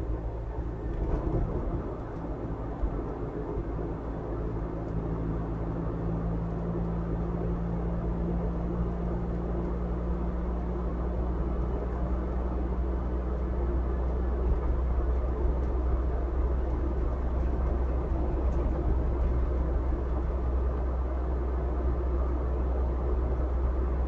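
A car driving along a road: a steady low rumble of engine and tyre noise, with an engine hum fading out about halfway through and the rolling noise growing slightly louder.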